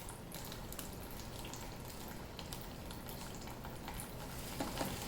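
Pet bird bathing in water: small splashes and drips scattered over a steady low water hiss.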